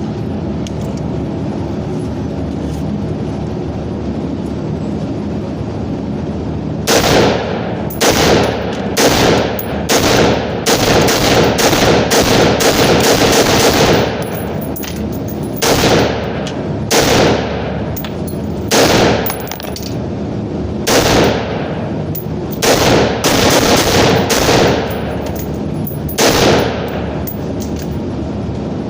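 Gunfire on a shooting range. After several seconds of steady background noise, a few single shots are followed by a fast string of shots lasting about four seconds, then more spaced single shots and pairs.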